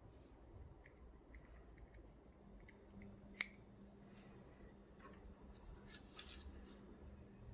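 Faint scattered clicks and taps, with one sharp click a little before halfway, over a faint low steady hum.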